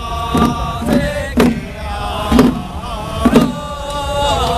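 Small ritual drum (xiao fagu) troupe chanting in unison, with a drum struck about once a second under the voices.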